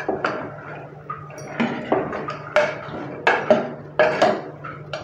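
Metal ladle stirring field beans and tomato in a steel pressure cooker pot, with irregular clinks and scrapes against the pot's sides and bottom. A steady low hum runs underneath.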